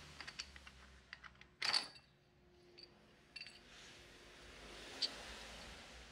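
Worn rear drum-brake shoes and their return springs on a Honda PCX being worked off the brake backing plate by hand. Light metallic clicks and scrapes, with one louder clack about a second and a half in, then a faint rustling.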